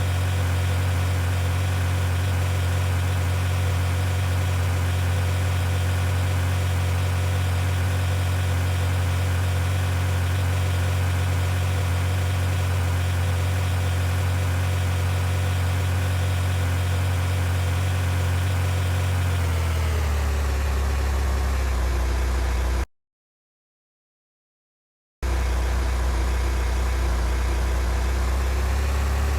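A car engine running at a steady pitch, which drops about twenty seconds in as it slows. The sound then cuts out for about two seconds before the engine is heard again at the lower pitch.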